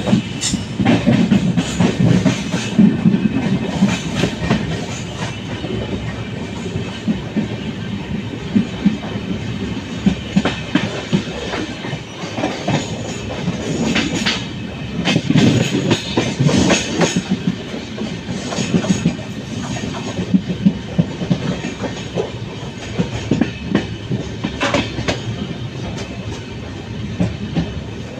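Trivandrum–Chennai Mail passenger train running along the line, with a steady rumble and the wheels clattering irregularly over the rail joints.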